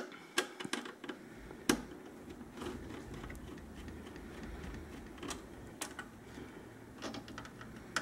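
Hand screwdriver clicking and tapping on screws as they are backed out of a microwave's control-panel board assembly: a few quick clicks in the first second, then scattered single clicks.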